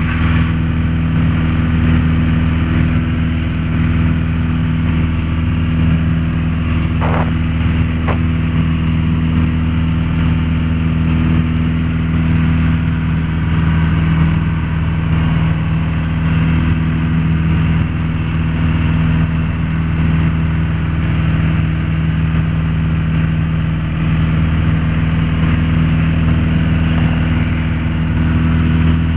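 Single-engine Piper Archer's four-cylinder Lycoming engine and propeller running steadily at takeoff power, heard from inside the cabin during lift-off and climb-out.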